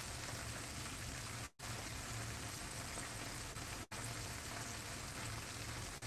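Whole butterflied chicken deep-frying in hot oil in a pan, a steady dense sizzle and crackle of bubbling oil. The sound cuts out for an instant twice, about a second and a half in and near the four-second mark.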